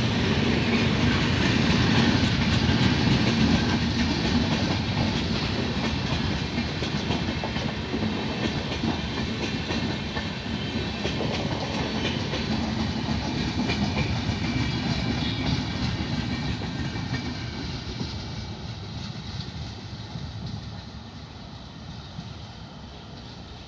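Express train passenger coaches rolling past at speed, their wheels clicking over the rail joints. The sound fades steadily in the last third as the end of the train draws away.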